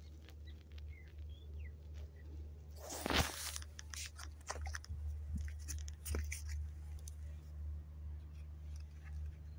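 Quiet handling noises on gravelly sand: a short crunch about three seconds in as the firecracker in its wooden igniter holder is set down, then scattered small clicks and scuffs. A steady low hum runs underneath.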